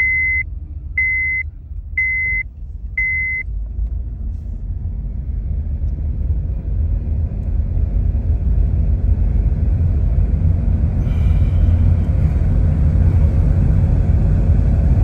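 A 2007 Honda Civic Hybrid on the move: a short electronic beep sounds four times, about once a second, over the low running of the engine and road. The rumble then builds steadily louder as the car gathers speed. The engine, recovering from misfires after low oil, still sputters a little.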